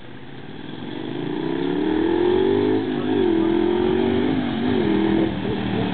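Honda CX650C motorcycle's V-twin engine approaching, growing louder over the first two seconds. Its pitch dips and recovers a couple of times with the throttle, then falls as it slows near the end.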